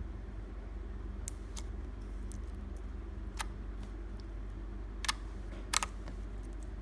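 Clear glitter slime being handled, giving a few sharp clicking pops, the two loudest close together near the end, over a steady low hum.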